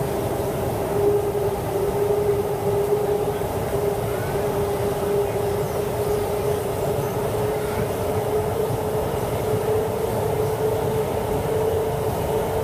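Siemens C651 metro train running, heard from inside the passenger car: a steady low rumble of the wheels on the track, with a single motor whine that sets in about a second in and creeps slowly up in pitch.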